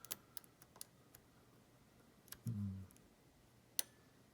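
Small clicks of a lock pick working the pin stacks inside a challenge padlock's core, with a light hand on the tension: a cluster of light clicks in the first second or so, then a single sharper click near the end. A short low hum about two and a half seconds in.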